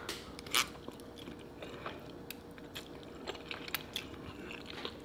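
A person eating a mouthful of Samyang instant ramen noodles close to the microphone: a short slurp about half a second in, then chewing with many small wet mouth clicks.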